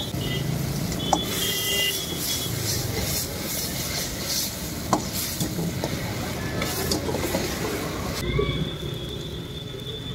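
Manchurian gravy sizzling and bubbling in an iron wok over a running gas burner, with a steel ladle stirring and clinking against the wok a couple of times. About eight seconds in the sizzling hiss cuts off suddenly.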